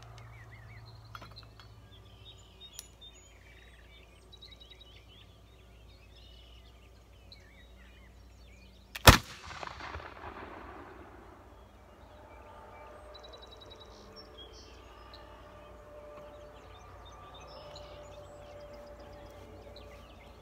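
A British light dragoon flintlock pistol fires a single loud black-powder shot about nine seconds in, with an echo trailing off for a second or two. Birds chirp faintly before and after.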